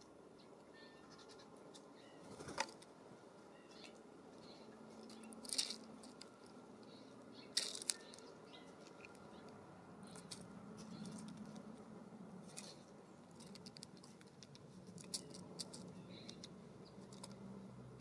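Faint outdoor yard sound with a low hum that grows in the second half, and a scattering of short sharp ticks and chirps from birds around a ground seed feeder, where a California scrub-jay comes in to feed.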